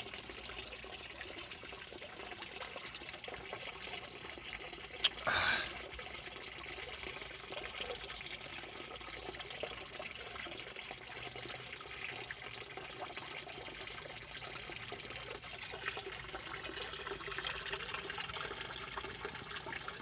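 Water trickling and splashing steadily into a small garden pond. A brief, louder burst of noise comes about five seconds in.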